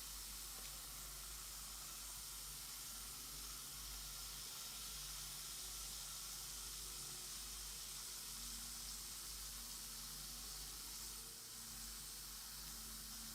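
Bath bomb fizzing steadily as it dissolves in water, a faint, even hiss.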